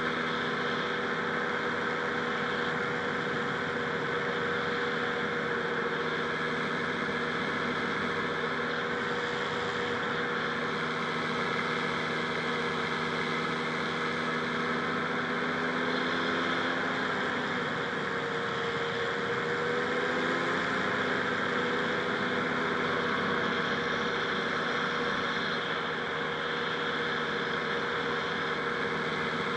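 Rotax 582 two-stroke twin engine of a powered parachute running steadily at a constant speed. Its pitch wavers briefly about two-thirds of the way through, then settles again.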